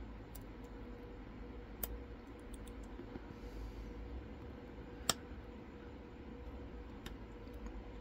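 Lock pick and tension wrench working in the keyway of an ABS Avocet lock, giving a few scattered small sharp clicks, the loudest about five seconds in, over a faint steady hum.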